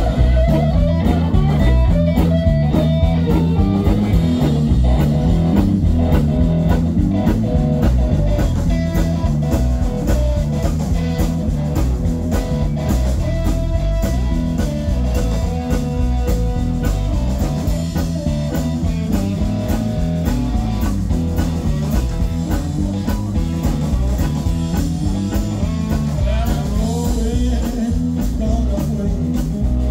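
Live blues-rock band playing: electric guitar over drums and a steady rhythm section.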